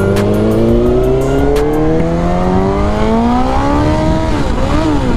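Suzuki GSX-R1000 inline-four with a loud pipe revving up hard through a gear, its pitch climbing steadily. About four seconds in, the revs drop and waver as the rider misses a shift, then settle.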